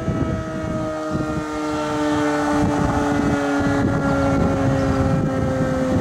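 Sentry 15V2T dual-tone outdoor warning siren sounding its two tones, the pitch sliding slowly and steadily downward as it winds down. Strong wind buffets the microphone underneath.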